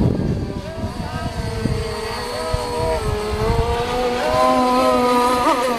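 Small two-stroke gasoline engines of radio-controlled racing boats running at high revs, their whine rising and falling in pitch as the boats turn and speed up, with a quick up-and-down wobble near the end.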